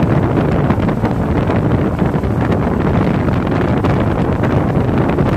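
Steady wind buffeting the phone's microphone aboard a motorboat under way, mixed with the boat's low running rumble.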